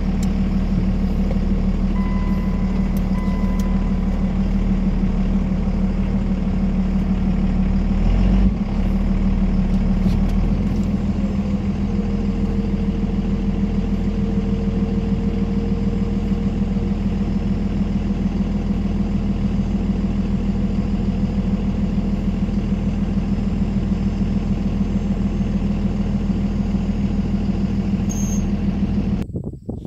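Flatbed truck's engine running steadily, heard from inside the cab while the truck reverses to a round bale. A short beep comes about two seconds in, a thump about eight seconds in, and a higher steady whine for a few seconds around the middle.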